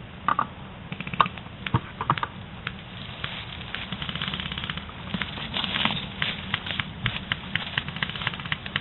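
Dry reed stalks rustling, crackling and snapping as someone pushes through a dense stand of them, with many irregular sharp clicks and a denser patch of rustling about halfway through.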